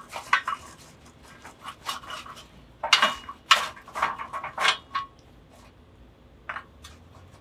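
Charcoal briquettes clinking against each other and the steel charcoal basket as a gloved hand shifts them around: a string of irregular light clinks, louder and busier about three to five seconds in.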